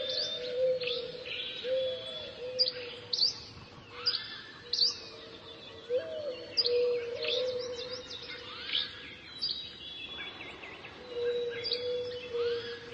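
Birds chirping and calling, with many quick, sharp chirps coming one or two a second over a steady lower tone.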